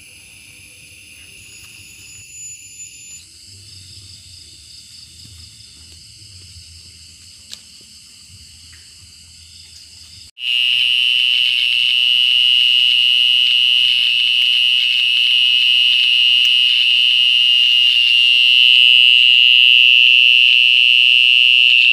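Night insect chorus of crickets trilling in several high, steady pitches over a low pulsing frog call; about ten seconds in it cuts to a much louder, continuous shrill insect trill close by.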